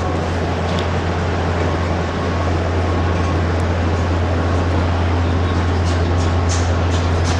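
Exhibition hall ambience: a steady, loud low hum under a general wash of hall noise, with a run of short sharp clicks near the end.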